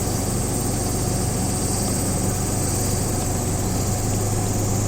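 A steady low hum like an idling engine, with a constant high-pitched drone of insects over it.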